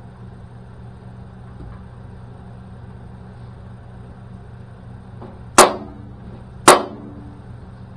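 Two sharp strikes of a dead blow hammer on the steel inner panel of a 1966 Mustang door, about a second apart, each with a brief ring, tapping down a bump in the bent panel. A steady low hum runs underneath.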